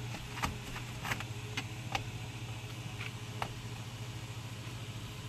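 A steady low hum, with about six light clicks and taps in the first three and a half seconds.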